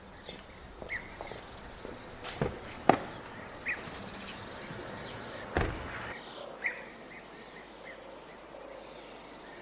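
Outdoor ambience with small birds chirping now and then, under the clicks of a BMW 750Li's door being opened. A little past halfway comes a solid low thump as the car door shuts.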